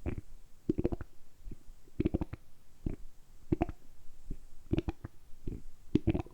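Human stomach gurgling, made on purpose by working the abdominal muscles: clusters of short bubbling pops and gurgles, about one cluster a second.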